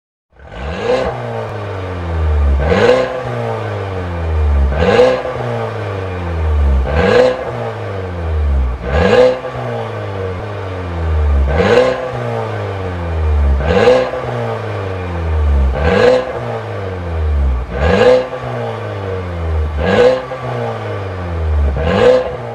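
Mercedes-Benz W205 C300's 2.0-litre turbocharged four-cylinder revved repeatedly through a Max Racing sport exhaust: about ten blips roughly two seconds apart, each rising quickly to a sharp crack at the top and then falling back.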